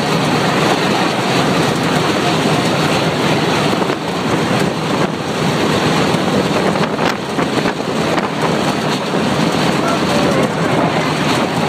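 Steady running noise of a metre-gauge electric railcar heard from the driver's cab: a dense, unbroken rumble and rush of wind as it travels along the track.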